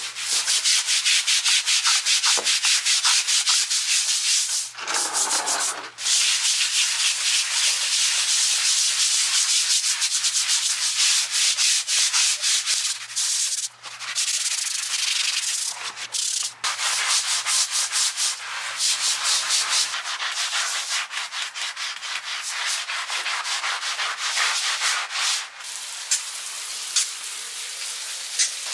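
A deck scrubber brushed back and forth over wet porphyry paving slabs with patio slab cleaner, scouring off green algae growth. Rapid repeated strokes with a few short pauses, quieter near the end.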